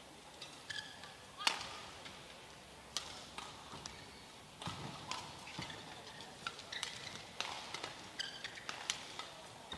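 Badminton rally: rackets striking a shuttlecock, sharp hits every second or so, with brief squeaks of court shoes between the strokes.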